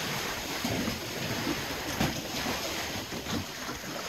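Sea rushing and splashing past a sailing catamaran's hull as it runs downwind, with wind buffeting the microphone and a louder gust or splash about two seconds in.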